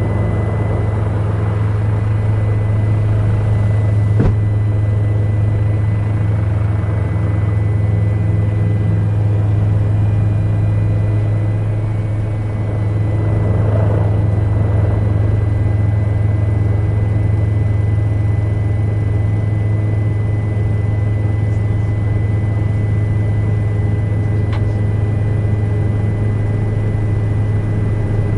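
Helicopter in flight heard from inside the cabin: a steady, loud low drone with a thin high whine above it. The drone dips briefly about halfway through.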